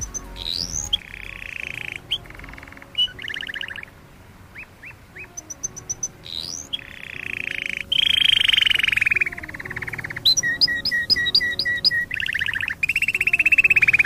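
Canary singing: fast rolling trills, rising whistled notes and runs of quick repeated chips, the song getting louder about halfway through. Faint background music underneath.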